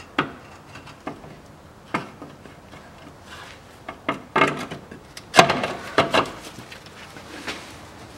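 Land Rover Discovery 3 spare-wheel winch knocking and scraping against the underbody as it is worked by hand into its mounting: scattered clunks and scrapes, busiest about five to six seconds in.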